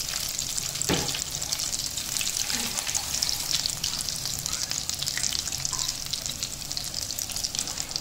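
Breaded chicken cheese rolls deep-frying in hot oil in a karahi: a steady, crackling sizzle, with one sharp click about a second in.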